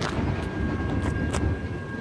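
Freight cars rolling through a road crossing: a low rumble with four sharp wheel clicks over the rail joints. The crossing bell rings steadily underneath.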